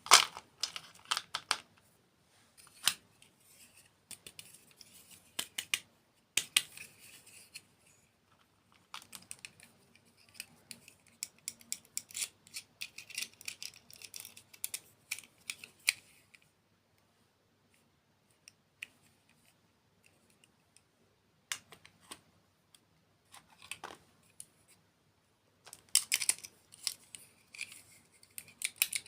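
Crisp crackling and sharp clicks in irregular bursts, close to the microphone, with quiet gaps between them.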